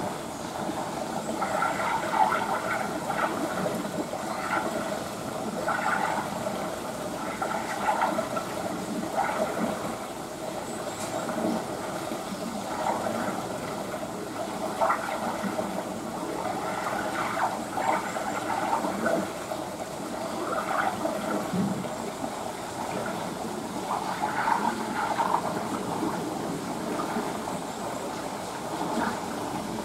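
Steady running and splashing water in a beaver enclosure's pool, an even rushing noise that swells and eases irregularly throughout.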